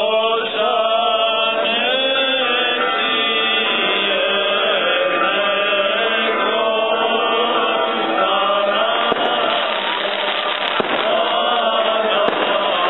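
Greek Orthodox Easter chant sung by men's voices in unison. From about nine seconds in, firecrackers and fireworks crackle over the singing.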